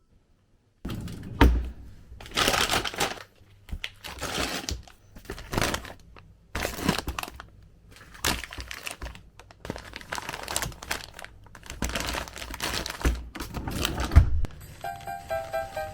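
Handling noises: irregular crinkling and rustling, with a few low knocks.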